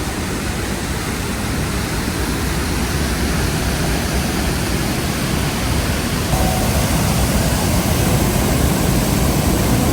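Niagara Falls at close range: a steady, loud rush of falling water and spray, growing slightly louder over the stretch.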